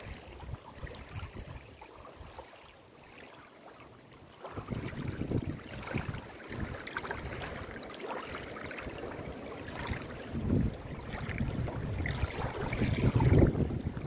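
Strong wind buffeting the microphone, with small waves lapping at a stony riverbank. The gusts grow louder about four and a half seconds in.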